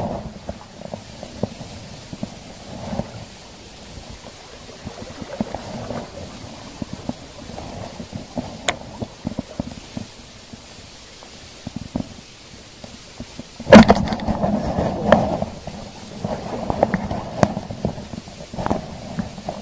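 Rod-and-reel handling: clicks and small knocks from a fishing reel and rod, with wind rumbling on the microphone. A single sharp knock comes about three-quarters of the way through, followed by louder rustling.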